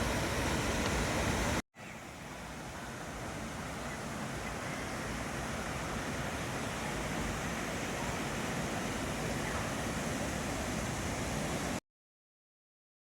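Steady rushing of a waterfall. It breaks off for an instant about two seconds in, comes back a little quieter and builds slowly, then cuts off abruptly near the end.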